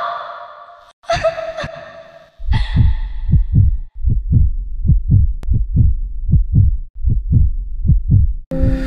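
Heartbeat sound effect: deep, steady lub-dub double thumps at about one beat a second, used as a tension cue. It is preceded by an echoing voice trailing off and cut short by music near the end.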